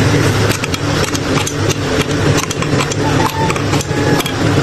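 An engine idling steadily at a constant speed, mixed with scattered light clicks and taps of metal parts being handled.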